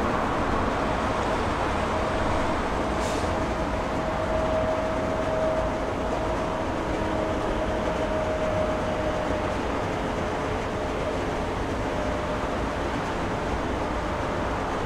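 Jet airliner engines running: a steady, even noise with a faint held tone that fades out about two-thirds of the way through.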